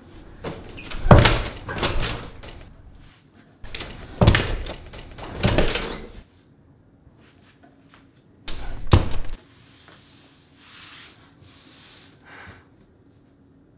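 Heavy bangs on a wooden door: a run of loud thuds in the first six seconds, then one more hard bang about nine seconds in.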